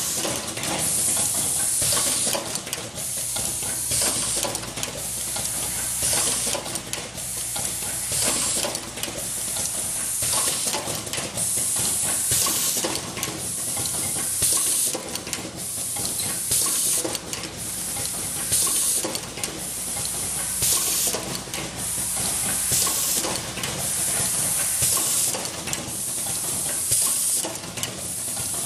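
An automatic valve assembly machine is running. Its pneumatic actuators let out short bursts of air hiss about once a second, over a steady clatter and clicking of the indexing table and the parts.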